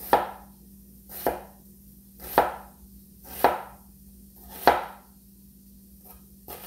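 Shun Classic vegetable cleaver cutting down through an onion onto a cutting board: slow, evenly spaced cuts about a second apart, each a short crunch ending in a knock of the blade on the board, with a sixth cut near the end.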